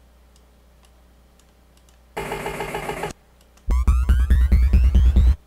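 Dubstep wobble-bass synth from the WobbleBOSS plugin, two notes played: a short one of about a second, then a louder, longer one with a deep pulsing bass and a rising sweep that cuts off suddenly.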